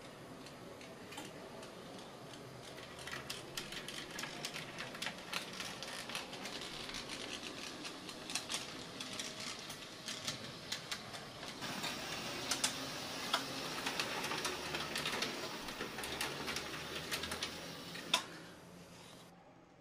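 HO scale model trams running on the layout's track: a small electric motor whirring with irregular clicks and rattles from the wheels on the rails, louder in the second half, with one sharp click near the end before it fades.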